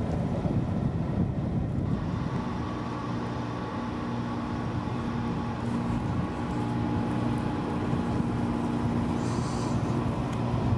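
Wind buffeting the microphone with a gusty low rumble, joined about two seconds in by a steady distant engine-like hum.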